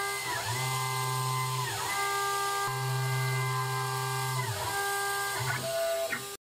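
CNC router machining aluminium: the water-cooled spindle whines at a steady pitch while the stepper motors' whine drops and climbs back each time the axes change direction, over a hiss from the cutting and the air/mist nozzle. It cuts off suddenly near the end.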